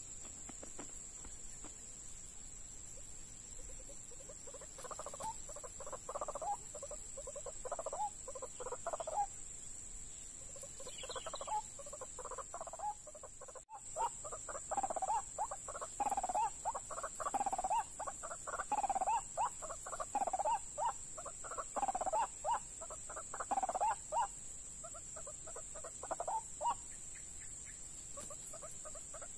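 White-breasted waterhen (ruak-ruak) calling: a long run of repeated calls that begins a few seconds in, grows louder about halfway through and dies away near the end. A steady high whine runs underneath.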